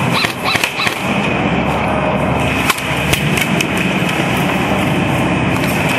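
Airsoft guns firing a few scattered single shots, sharp clicks and pops, over a steady loud rushing noise.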